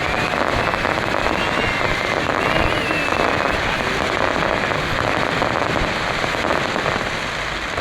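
Festive fireworks salute crackling densely, many small pops and crackles overlapping into a steady rattle, with a few high whistles over it; it eases slightly near the end.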